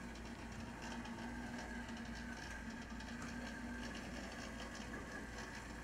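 HO scale brass model 4-6-6-4 Challenger steam locomotive running along the track. Its can motor and gear drive give a steady whine, with light ticking from the running gear and wheels on the rail.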